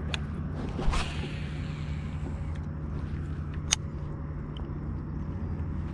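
A steady low hum, with a brief swish about a second in and one sharp click a little before four seconds.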